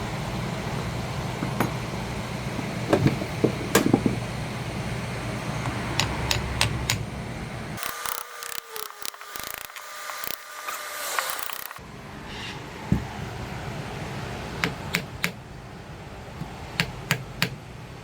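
Hand tools and metal parts of a Lucas tractor starter motor clicking and knocking while it is being dismantled, with a steady low rumble behind them that stops about eight seconds in.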